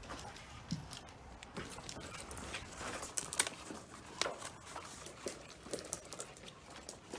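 Scattered light clicks and taps of small items being handled, irregular and without any steady machine sound; the loudest click comes about three and a half seconds in.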